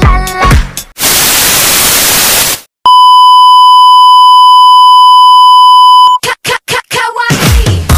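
A loud burst of TV static hiss, then the steady test-tone beep that goes with colour bars, held for about three seconds. It cuts off into a few short choppy stutters before dance music comes back near the end.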